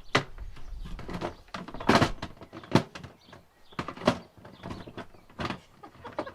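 Hard plastic parts of a new Victa lawn mower knocking and clunking as they are handled and forced into place, in irregular knocks about once a second.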